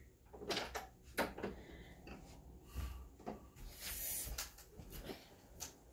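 Interior door being pushed shut, with a series of short knocks and clicks from the door and its latch, the loudest in the first second and a half.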